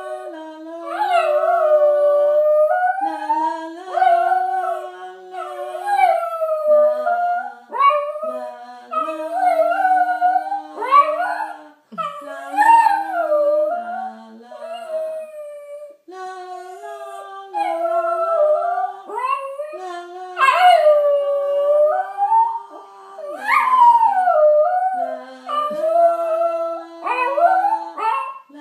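Small terrier howling in long, wavering howls that rise and fall, in repeated bouts with short breaks, while a woman sings low held notes along with it.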